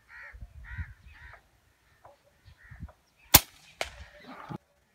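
Crows cawing several times in quick succession, then, about three seconds in, the sharp crack of a shot from a Rapid HM1000X PCP air rifle, followed about half a second later by a fainter sharp knock.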